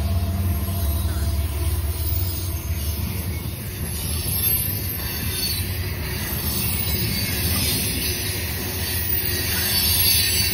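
Freight train passing close by: a diesel locomotive's low engine rumble for the first few seconds, then steel-wheeled hopper cars rolling past in a steady rush of wheel and rail noise, with a faint high wheel squeal at times.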